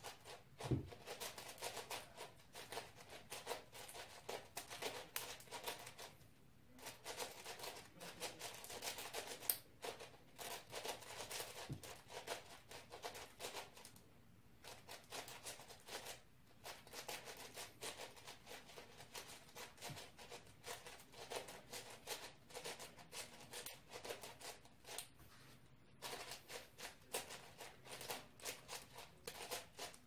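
Speed cube being turned fast by hand: a dense run of plastic clicks and rattles from the layer turns, broken by short pauses about every eight to ten seconds.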